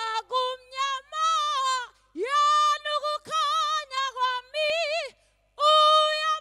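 A woman's solo voice singing a Zulu gospel song with no instruments: high phrases with long held notes and wide vibrato, broken by short breaths.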